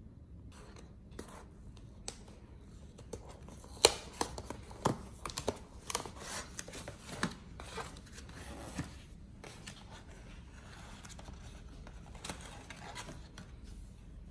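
White cardboard cake box being handled and opened by hand: a run of sharp clicks, knocks and scrapes from about four to nine seconds in, the loudest right at the start of the run, then softer rustling as the card flaps are folded back.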